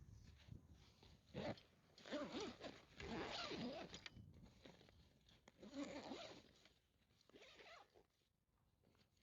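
A zipper pulled in a handful of short strokes, the longest about three seconds in, faint and close.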